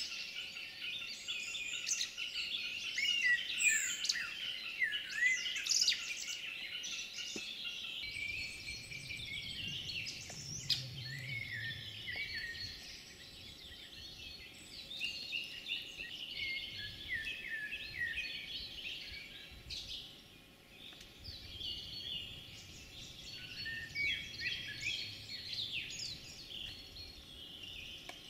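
A chorus of many small songbirds singing at once in a spring swamp forest: dense overlapping chirps, trills and quick sweeping notes. A faint low rumble comes in underneath about eight seconds in.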